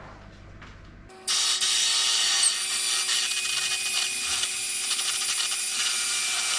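Electric hand mixer switched on about a second in, its beaters whisking milk and double cream in a glass bowl: a steady motor whine with the whirring of the beaters.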